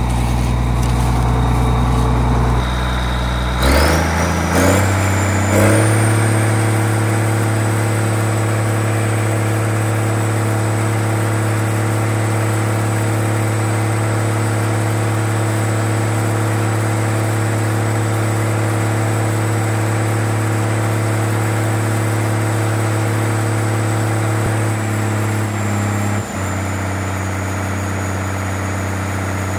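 Case four-wheel-drive tractor's diesel engine starts at idle, is throttled up in two steps about four and six seconds in, and then holds at high speed with a steady high whine. It eases back slightly near the end. The tractor has an exhaust leak.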